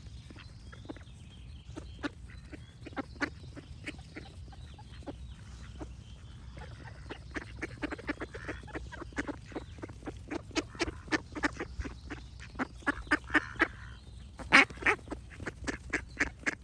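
Ducks quacking in quick runs of short quacks, the loudest calls coming near the end, with faint birdsong and a steady low rumble underneath.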